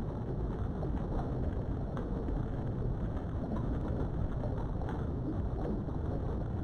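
Steady low rumbling background noise at an even level, with a few faint clicks.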